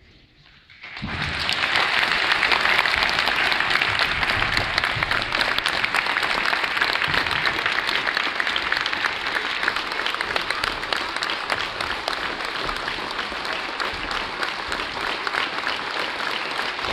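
Audience applauding: a brief hush, then clapping breaks out about a second in and goes on as a dense, steady wash of claps, easing off slightly toward the end.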